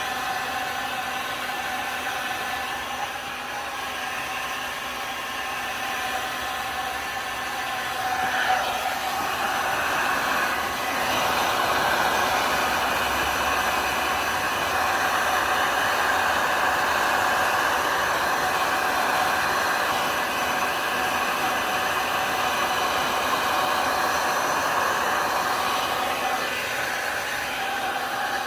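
A handheld hot-air heat tool blowing steadily with a whirring hum. It gets louder about eight seconds in and again around eleven seconds, as it is played over the alcohol ink on the tumbler to dry and set it.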